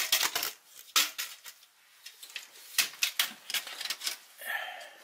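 Tape measure being handled and set against the boat: a run of irregular, sharp clicks and light metallic taps.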